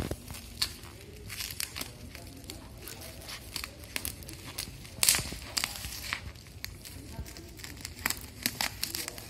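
Scissors cutting through bubble-wrap packing, the plastic crinkling and crackling in irregular bursts, with one sharper crackle about five seconds in.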